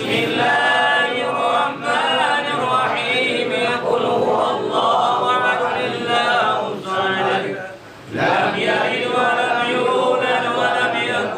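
A group of men chanting tahlil (samadiyah) prayers together in unison, unaccompanied. The chant pauses briefly for breath about eight seconds in.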